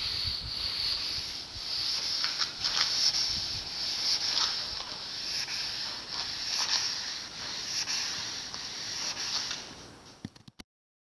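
Hand sanding of a boat's fibreglass gunwale with wet-and-dry sandpaper on a sanding block: a steady hissing rub of paper over the gel coat in uneven back-and-forth strokes. It fades and stops abruptly near the end.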